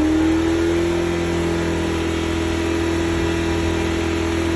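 Mercedes CLA engine running steadily at raised revs, with a steady whine that climbs slightly in the first second and then holds level.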